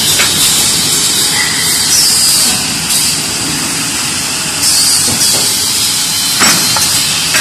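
DB-470PP plastic thermoforming machine running through its tray-forming cycle: a loud, steady hiss of compressed air with a few sharp knocks from the press and pneumatic cylinders.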